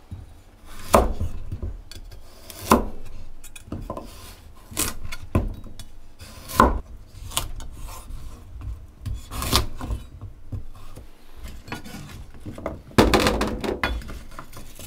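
A kitchen knife cutting vegetables on a wooden cutting board: separate scraping strokes and knocks at uneven intervals, about one a second, with a quick run of them near the end.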